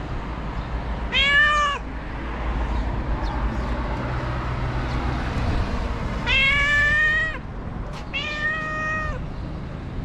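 Ginger tabby cat meowing three times: a short meow about a second in, then a longer one around six seconds in, followed closely by a third.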